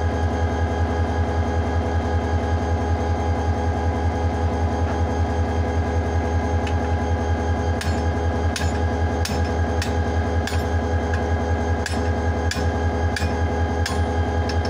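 Diesel locomotive engine idling steadily. In the second half, a series of sharp metallic knocks, roughly one every two-thirds of a second, from work on the coupling between the locomotive and the coach as it is attached.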